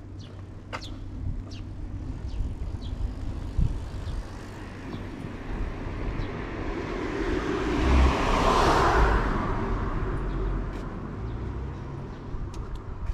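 A car driving past on the street, its tyre and engine noise swelling to a peak about eight to nine seconds in and then fading away.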